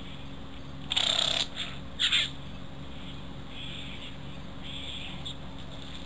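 Young male satin bowerbird giving short, scratchy calls: a loud one about a second in, another about two seconds in, then two softer ones later.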